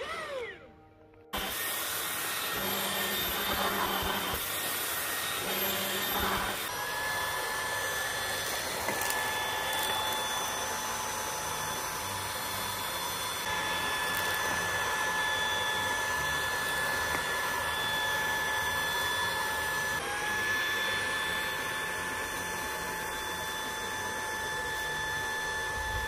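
Dreame V11 cordless stick vacuum starting up about a second in, then running steadily: a high-speed digital motor whine over rushing suction air, drawn through a crevice tool. The whine drops slightly in pitch about 20 seconds in.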